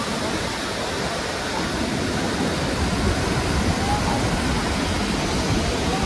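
Waterfall in flood, with muddy water pouring over a broad rock ledge: a steady, heavy rush of falling water.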